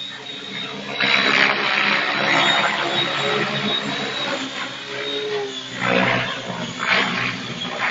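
T-Rex 700 radio-controlled helicopter in flight: its rotor noise swells sharply about a second in and again twice near the end as it manoeuvres, over a steady high whine.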